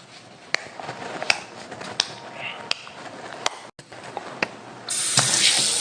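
Sharp clicks at a steady pace of about one every 0.7 s, then a loud, steady hiss starts suddenly near the end.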